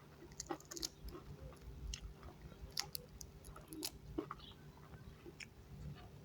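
A person eating and chewing close to the microphone: faint, irregular mouth clicks and smacks.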